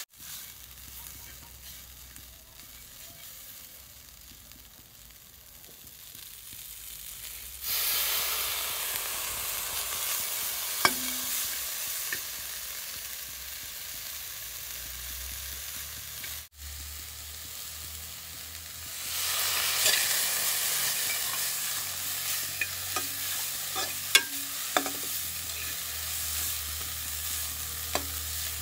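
Shredded chicken and vegetables sizzling as they stir-fry in a metal pot, with a metal spoon scraping and clinking against the pot as it stirs. The sizzle is fainter for the first quarter and then louder, and the clinks come several times toward the end.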